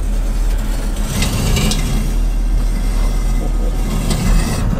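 Ram 1500 Classic pickup's chrome rear bumper scraping and grinding on sandstone slickrock as the truck creeps down a steep ledge, with two louder scraping stretches, about a second in and near the end, over the low rumble of the engine. The bumper is dragging because the stock truck lacks clearance on the downgrade.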